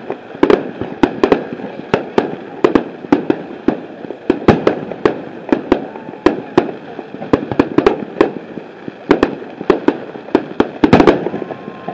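Fireworks bursting in rapid irregular succession: sharp bangs and pops, two or three a second, with a denser flurry near the end.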